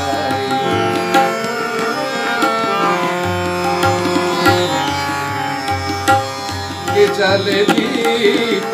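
Instrumental interlude of a Hindi song: a harmonium plays a melody of held notes over tabla strokes and the drone of a plucked tanpura.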